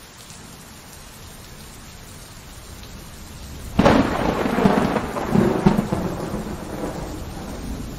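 Steady rain, then a sudden thunderclap almost four seconds in that rumbles on for a few seconds and slowly fades.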